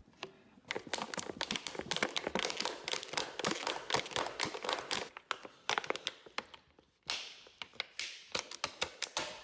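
Thin plastic sheet crinkling and scraping as it is worked out from between a tightly fitted front fender and the fork leg: a dense run of rapid rustles and clicks, pausing briefly twice near the end.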